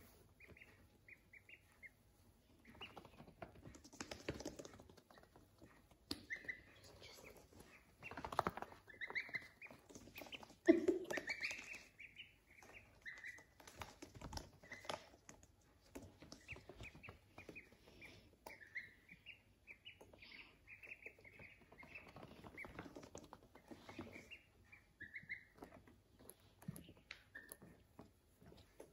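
Ducklings and a gosling peeping: runs of short, high cheeps repeated throughout, over faint scuffling and rustling, with one louder knock about eleven seconds in.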